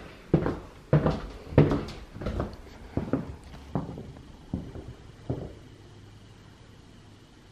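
Footsteps on a laminate hallway floor at walking pace, about one and a half steps a second, growing fainter and stopping about five seconds in. A faint steady hum is left after them.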